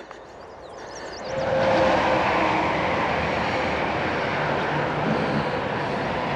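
Steady rush of flowing river water, setting in about a second in.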